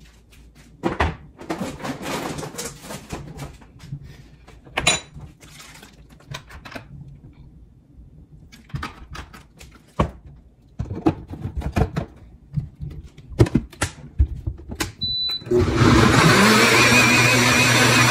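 Scattered knocks and clatter of things being handled, then a single short electronic beep, after which an appliance motor starts, its pitch rising briefly, and runs steadily and loudly.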